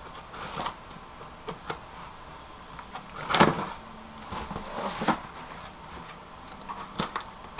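Cardboard shoebox being handled and moved on a surface: scattered knocks and scrapes, the loudest a single thump about three and a half seconds in.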